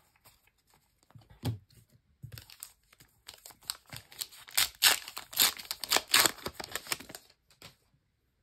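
Match Attax foil booster pack being torn open by hand, with a run of crinkling rips that is loudest in the middle. A few light clicks of cards being handled come first.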